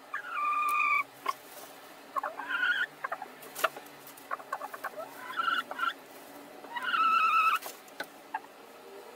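Laying hens giving four drawn-out, steady-pitched squawks as two of them squabble over the same nest box. Straw rustles and there are a few sharp clicks between the calls.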